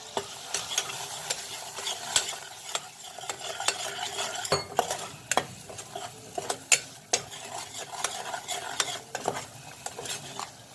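A spatula stirring a tomato and spice masala frying in oil and ghee in a pan, with a steady sizzle and many sharp scrapes and clinks of the spatula against the pan.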